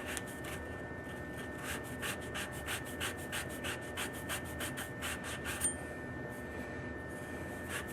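Rhythmic scrubbing strokes, about three a second, as the end of a copper pipe is cleaned with an abrasive before soldering. The strokes stop about six seconds in and start again near the end.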